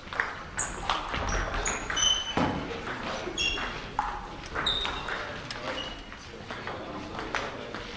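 Table tennis balls clicking irregularly off bats, tables and the hall floor, with several short high pings among the clicks.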